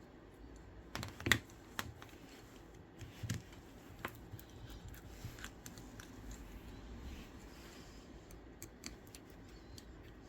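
Scattered light clicks and taps of small precision tools against an iPhone's frame and parts as tiny screws holding the ear speaker are taken out. There is a short cluster of clicks in the first couple of seconds and a few more near the end.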